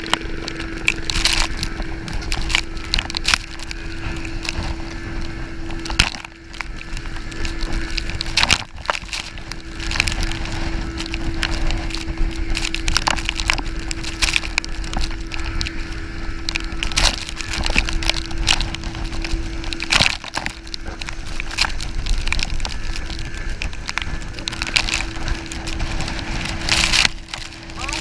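Inflatable banana boat towed at speed over choppy water: rushing spray and wind buffeting the chest-mounted camera, with frequent sharp knocks and slaps as the tube hits the waves, over a steady hum.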